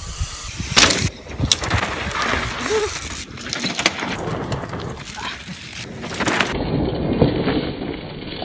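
Mountain-bike tyres rolling and skidding through loose, dusty dirt and sand, with knocks and thumps from the bikes on rough ground. The sound changes abruptly several times as short clips follow one another.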